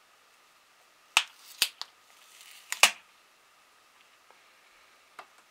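Sharp handling clicks and a brief rustle as a thin stick-on radiation-shield pad is pulled off the back of a smartphone lying on a table: four clicks in under two seconds, the first and last loudest, then a faint tick near the end.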